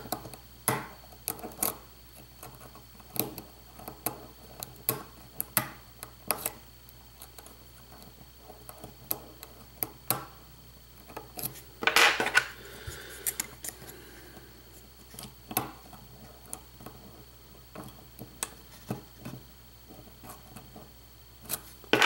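Hook pick working the pins of a euro profile cylinder lock held under tension: faint, irregular metallic ticks and scrapes, with a brief louder rustle about halfway through.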